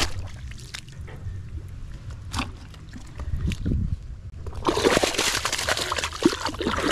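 Shallow muddy water sloshing and splashing around a bamboo plunge basket as it is pressed down and a hand gropes inside it. Quieter sloshing with a few sharp knocks over a low rumble at first, then loud, continuous splashing from about two-thirds of the way through.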